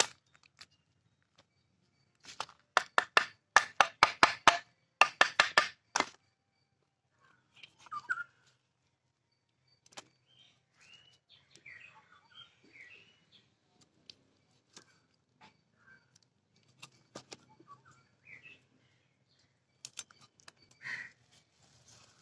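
A large knife striking repeatedly through fish on a wooden chopping block in three quick runs of strokes, the loudest sound, in the first six seconds. After that, faint scattered bird chirps.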